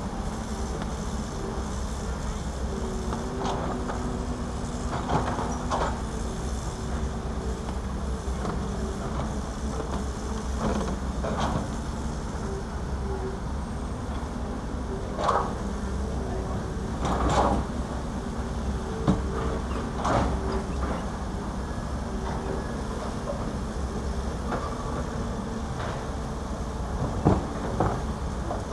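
Caterpillar 320D hydraulic excavator working: a steady diesel drone with a pitched whine that comes and goes, broken by irregular clanks and knocks of the bucket and rubble, the loudest near the middle and near the end.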